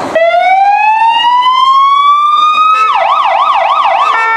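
Fire engine siren sounding: it starts with a slow rising wail, switches about three seconds in to a fast warbling yelp, and near the end changes to a steady held note.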